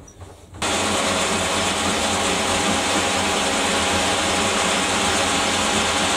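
An electric power tool switches on about half a second in and runs steadily with a loud, even hiss, cleaning up metal parts.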